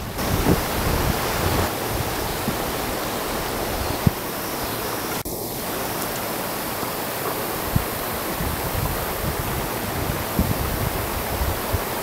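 Steady rushing of water falling over the creek's rock ledges, an even hiss with no pauses, under an uneven low wind rumble on the microphone.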